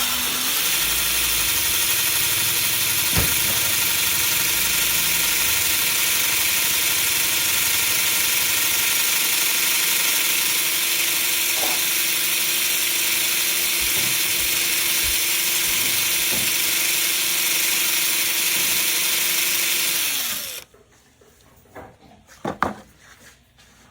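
A power tool running at a steady high speed with a constant hum and hiss, then switched off about twenty seconds in, its pitch dropping briefly as it stops. A few light clicks and knocks follow.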